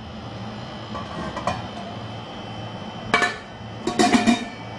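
Stainless steel bowls clattering against each other as they are handled: a couple of faint knocks, then louder clinks about three seconds in and again around four seconds, over a steady low hum.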